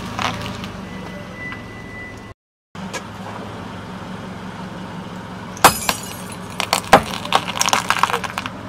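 A light bulb bursting with a sharp pop under a slowly rolling off-road tyre, followed by more snaps and the crunch and clink of broken glass as the tyre rolls over the pieces. A vehicle's steady low engine hum runs under it, with a brief cut to silence about two seconds in.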